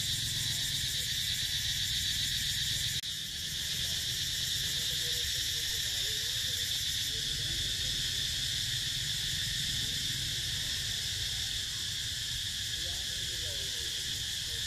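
Steady, high-pitched chorus of insects, with a low rumble underneath.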